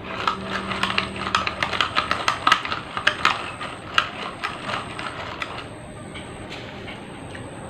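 Close-up eating sounds: a rapid, irregular run of small clicks and clinks for about five seconds, then they die down.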